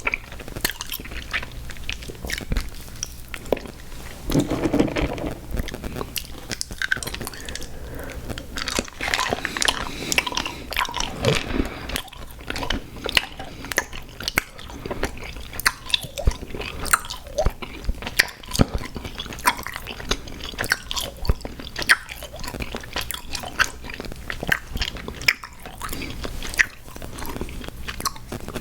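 Close-miked chewing and crunching of sour gummy worms cereal: a continuous run of crisp crunches and small clicks, thicker in two stretches.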